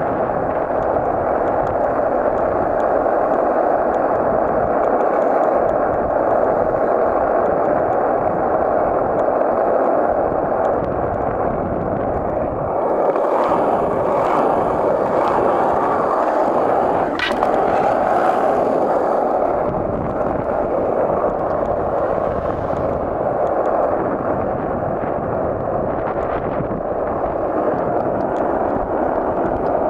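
Skateboard wheels rolling over asphalt, a steady, loud rolling noise throughout, with one sharp click about halfway through.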